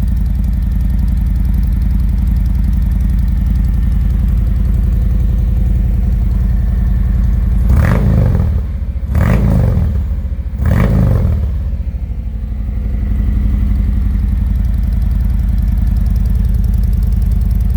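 Harley-Davidson Road Glide's Milwaukee-Eight V-twin idling with a deep rumble through slip-on mufflers with modified baffles. Near the middle it is blipped three times in quick succession, each rev rising and dropping back to idle.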